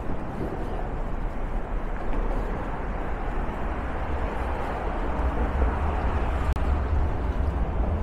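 Downtown street ambience: traffic going by, with a heavy low rumble that grows stronger in the second half.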